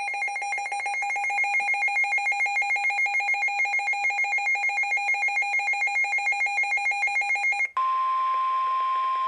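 Emergency alert tones from a weather alert relay. A buzzy, rapidly pulsing alert tone sounds for about eight seconds and cuts off, then a single steady high tone near 1 kHz follows, like the weather radio warning alarm that comes before a spoken warning.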